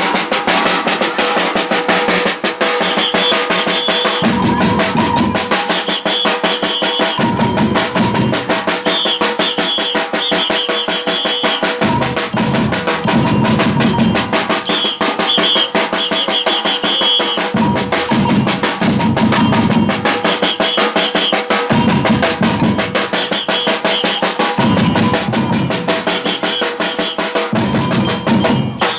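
Batucada samba percussion ensemble playing: a dense, fast snare-drum groove throughout, with the deep bass drums (surdos) coming in in repeated phrases every few seconds and short high pips recurring above them.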